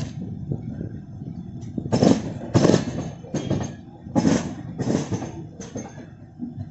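A train rolling past, its wheels knocking over rail joints in a repeating clickety-clack, heard as groups of three sharp knocks over a steady rumble.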